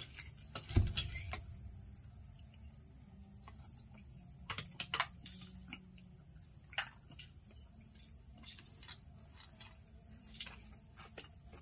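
Sparse light clicks and taps of utensils working in a mortar as papaya salad is mixed, with a dull thump about a second in. Steady high insect calls run underneath.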